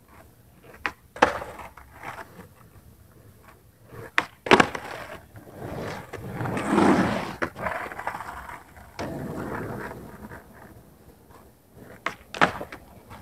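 Skateboard flip tricks on pavement: sharp clacks of the tail popping and the board landing, a few times. Between them comes the rumble of urethane wheels rolling, swelling loudest as the board passes close by about seven seconds in. A last pop and landing come near the end.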